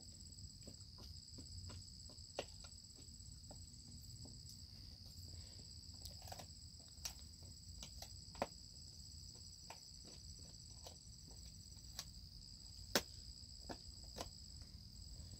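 A dog chewing a pig snout: irregular faint crunching clicks, the sharpest about 13 seconds in, over a steady high-pitched chorus of insects.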